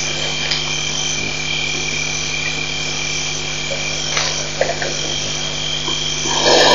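Night chorus of frogs and insects calling steadily around a waterhole, over a low steady hum. A short rush of noise comes near the end.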